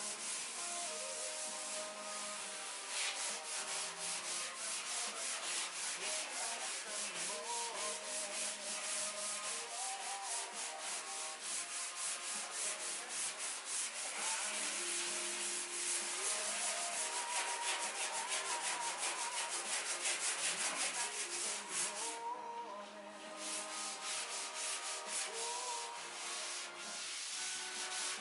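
Scouring pad scrubbing acid-soaked surface rust on a 1967 Lincoln Continental's steel body panel in rapid back-and-forth strokes, with a brief pause about three-quarters of the way in.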